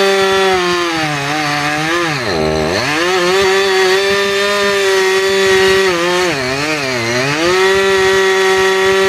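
Two-stroke chainsaw running at high revs while cutting a dead tree. Its pitch drops and recovers about two and a half seconds in and again near the seven-second mark, as the chain bogs down in the wood.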